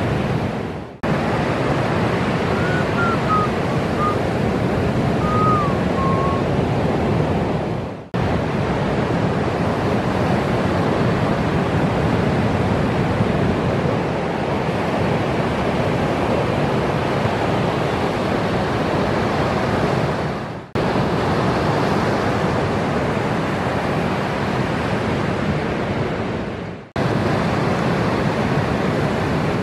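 Ocean surf: a steady rush of breaking waves and whitewater, broken by four brief dropouts where clips are cut together. A few faint high chirps come a few seconds in.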